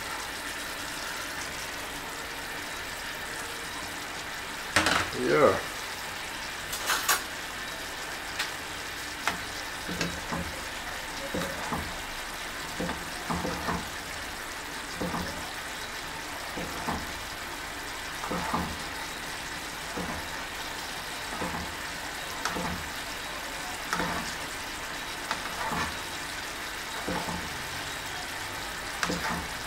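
Food sizzling in hot oil in a cooking pot, a steady hiss, with short clinks or scrapes coming about once a second through the second half.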